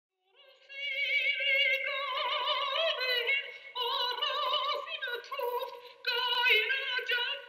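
A woman singing in an operatic style, holding long high notes with wide vibrato, fading in at the start and pausing briefly between phrases.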